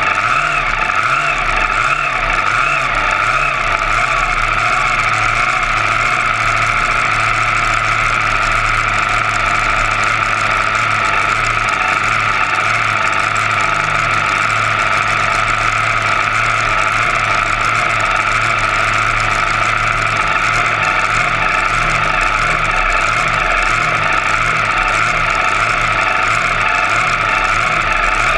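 Junior dragster's engine running at a steady idle close to the camera, without revving, as the car rolls slowly toward the starting line.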